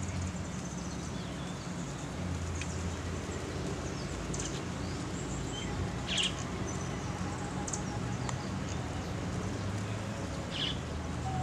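Outdoor ambience: birds give a few short, high chirps, spread out, over a steady background hiss and a low steady hum.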